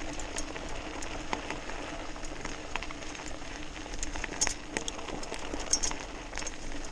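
Electric BMX bike riding over a loose gravel trail: tyres crunching on stones, with scattered ticks and rattles over a steady low hum.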